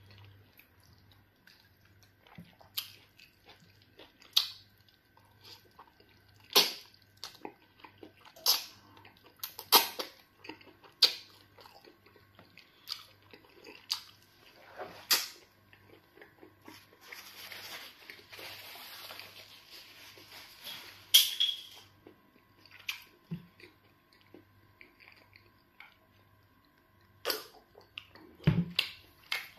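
Close-miked chewing and wet mouth smacks of a person eating pounded yam fufu and chicken in black soup by hand, with irregular sharp clicks throughout. About two-thirds of the way through there is a longer stretch of hissy mouth noise.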